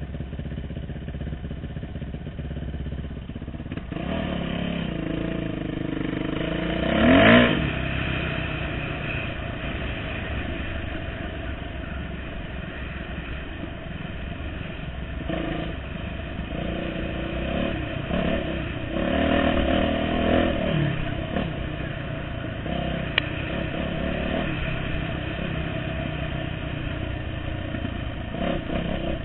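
Dirt bike engine running while being ridden on a trail, its pitch rising and falling as the throttle is opened and closed. The loudest rev comes about seven seconds in, and there is a short sharp click near the end.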